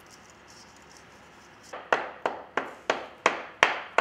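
Faint hiss of molding sand sifting through a riddle, then a run of about six sharp knocks, about three a second, as the sand is packed into the flask around the pattern, the last ones loudest.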